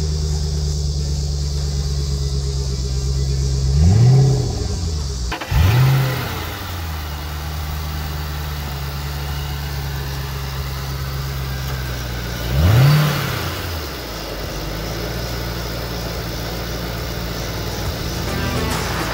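2008 Shelby GT500's 5.4-litre supercharged V8 idling steadily, blipped three times with quick rev-ups that drop straight back to idle: about four seconds in, about six seconds in, and about thirteen seconds in. It is heard first at the tailpipes, then at the open engine bay after a cut about five seconds in.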